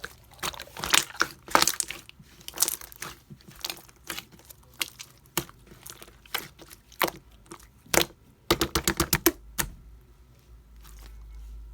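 Pink jelly-textured slime being squished and pressed by hand, giving irregular sharp clicks and pops. A quick run of about eight pops comes around two-thirds of the way in, and the sounds thin out near the end.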